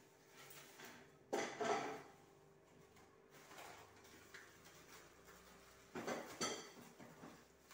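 Metal cooking pot and utensils clattering as they are handled on the stove: two short bursts of knocks and scrapes, about a second in and again near six seconds, the second with a brief metallic ring.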